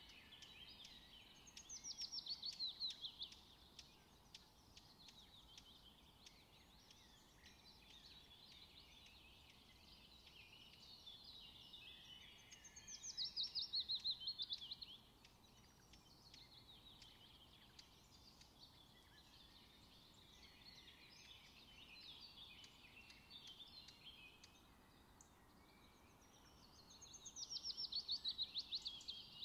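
A songbird singing three phrases about twelve seconds apart, each a quick run of notes falling in pitch over about two seconds, with faint chirps in between.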